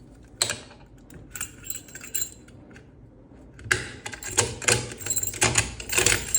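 Key being turned in a Securemme 3+3 lock. There is a sharp metallic click about half a second in and a few light clicks after it. From about three and a half seconds in comes a quick run of metallic clicks and rattles as the lock mechanism works.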